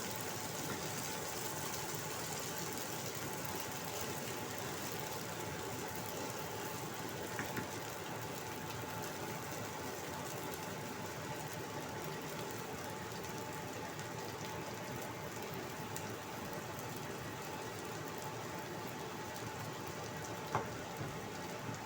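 Potato and carrot fritters frying in hot oil in a wok: a steady sizzle, with a couple of light clicks.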